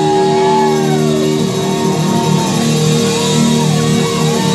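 Live country-rock band playing loudly: lead electric guitar bending notes up and down over held chords.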